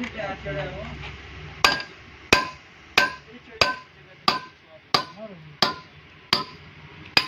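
A hammer striking metal in a steady series of about nine blows, roughly three every two seconds, starting about one and a half seconds in, each blow leaving a short metallic ring.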